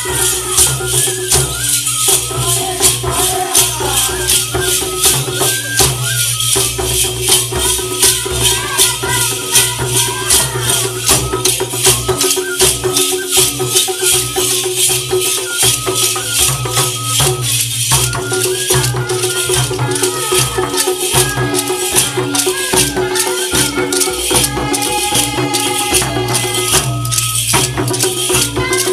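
Chhattisgarhi Karma folk dance music: voices singing in phrases over barrel drums and a quick, even rattling beat, the singing breaking off briefly between phrases.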